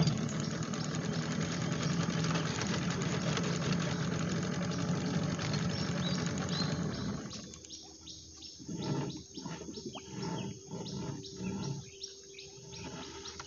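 Small boat's engine running steadily, then cut off about seven seconds in. Insects chirping and scattered short sounds are left behind.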